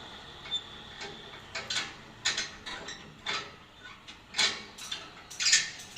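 Ratchet strap being tightened to tie down a mini excavator: a run of irregular ratcheting clicks and rasps as the handle is worked.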